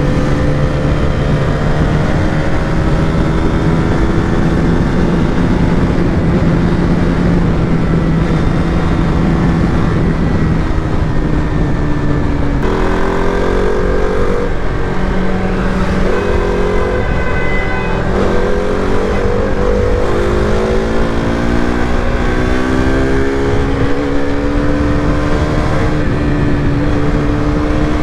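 KTM RC200's single-cylinder engine running under way over a constant rushing noise. Its pitch holds steady, changes abruptly about halfway through, then climbs over the later part as the bike gathers speed.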